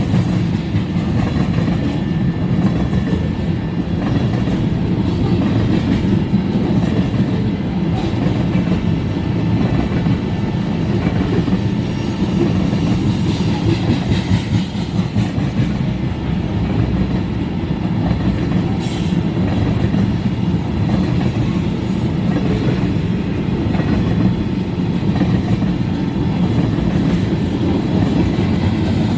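Freight train of ethanol tank cars rolling past: a steady loud rumble of steel wheels on the rails that does not let up.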